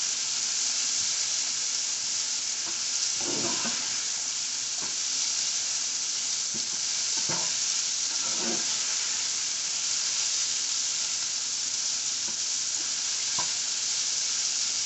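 Sliced onion, sweet peppers, tomato, scallion and thyme sizzling steadily in hot avocado oil in a stainless steel sauté pan. A spatula stirs them, scraping or knocking against the pan about five times.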